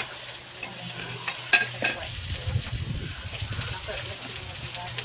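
Food sizzling on a barbecue hotplate, a steady hiss, with two sharp clicks about a second and a half in and a low rumble through the middle.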